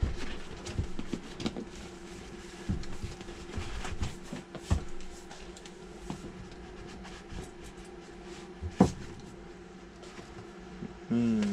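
Large cardboard box being handled and shifted on a tabletop: scattered taps, knocks and scrapes, with one sharper knock about nine seconds in, over a faint steady hum.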